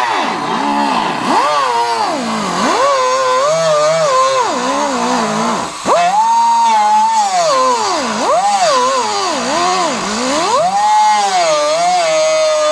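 Power cutting tool slicing through the Chevelle's rusted lower body sheet metal along a marked line, to make room for a patch panel. The motor's pitch keeps dipping and recovering as the tool bites into the steel and eases off.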